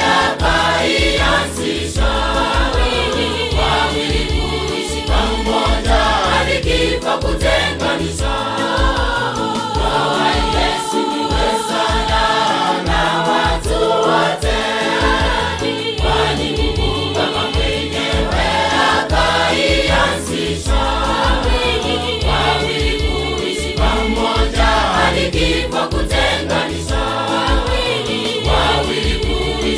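Mixed church choir singing a gospel song in harmony over a steady bass beat.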